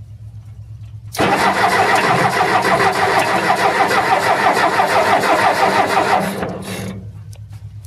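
Electric starter cranking a Ford 881 tractor's four-cylinder diesel engine for about five seconds, beginning about a second in, with a fast regular beat from the compression strokes. The engine does not fire, because the Roosa-Master injection pump is in the fuel shut-off position and delivers no fuel.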